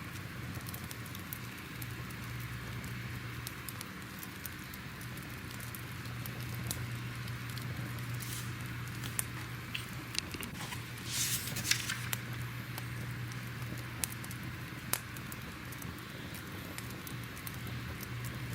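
Fire crackling steadily over a low, even background, with scattered sharp pops and a short cluster of louder pops about two thirds of the way through.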